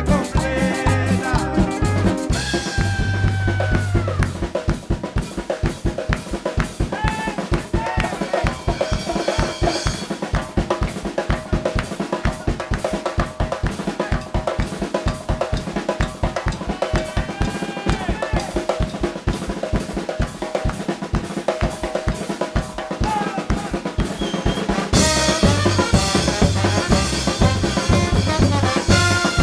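Instrumental stretch of a cumbia song: a busy drum kit and percussion drive it with rapid hits, and melody instruments play over the top. The heavy bass drops back after about two seconds and comes in strong again near the end.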